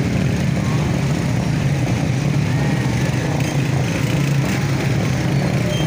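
Small motorcycle engines running steadily in slow, jammed traffic.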